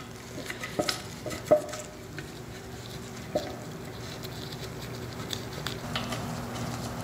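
Light clicks and knocks of a pool pump's plastic seal plate being handled and fitted onto a new motor by gloved hands, the sharpest knock about a second and a half in, over a steady low hum.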